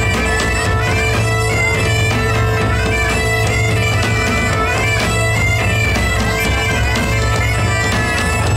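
Two bagpipes playing a lively melody in unison over a steady drone, with a large bass drum and a hand drum keeping an even beat underneath.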